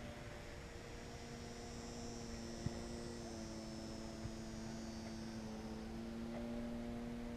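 Electric motor and propeller of a TechOne Air Titan RC plane flying high overhead, a steady distant buzzing hum that shifts a little in pitch about halfway through as the throttle or distance changes.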